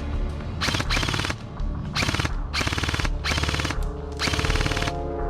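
Airsoft electric guns firing in several short full-auto bursts of rapid clicks, each burst well under a second long.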